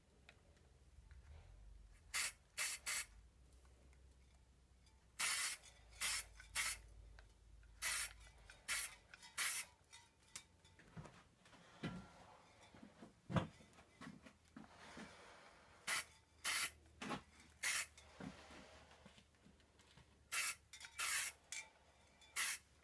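An aerosol can of Varathane Professional polyurethane, fitted with a trigger grip, spraying in about twenty short hissing blasts, often two or three in quick succession. It is laying a fresh coat of polyurethane over a sanded patch of finish.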